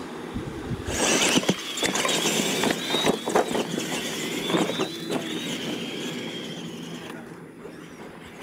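Two electric radio-controlled monster trucks of the Tamiya Clod Buster kind launching from a standing start about a second in, their motors and gears giving a steady high whine, with several knocks as they hit the ramps and jumps. The whine fades away after about six seconds as the trucks reach the far end of the track.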